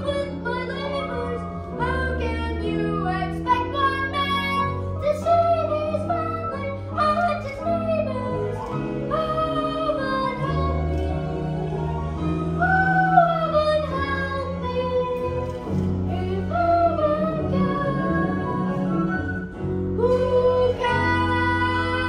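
Young female voices singing a musical-theatre song with band accompaniment.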